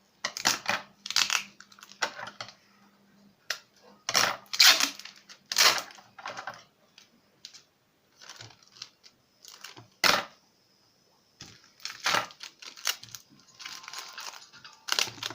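Clear adhesive tape being pulled off its roll and torn, in short irregular rips and handling noises with pauses between them.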